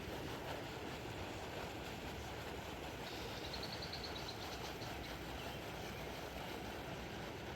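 Steady outdoor rushing noise with a brief run of faint high ticks about three and a half seconds in.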